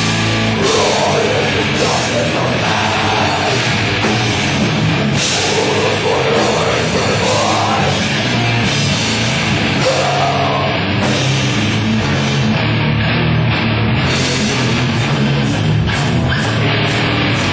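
Heavy metal band playing live and loud: distorted electric guitars, bass guitar and a drum kit in one dense, unbroken wall of sound.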